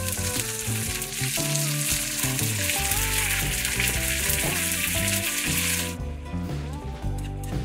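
Chopped napa cabbage frying in a nonstick pan, sizzling steadily; the sizzle cuts off suddenly about six seconds in. Background music with a melody plays throughout.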